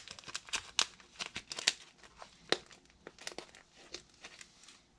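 Fly-tying dubbing (silver minnow belly and rainbow dub) being pinched and pulled apart between the fingers to mix it: quick, irregular crinkling, crackling clicks, thick at first and thinning out toward the end.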